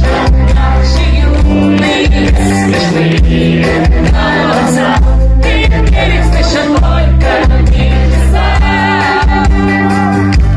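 Rock band playing live on an open-air stage through a PA, with a sung vocal over heavy bass, guitars, keyboard and drums.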